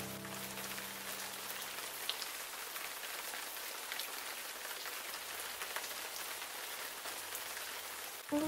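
Steady soft rain ambience, an even hiss with scattered light drop ticks. A held music chord fades out over the first second or so, and a new chord comes in right at the end.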